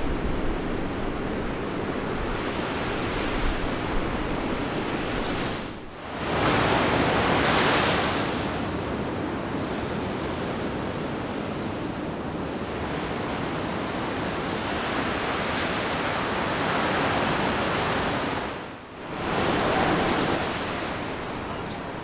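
Ocean surf breaking and washing ashore, a steady rushing noise that dips briefly twice and swells back louder.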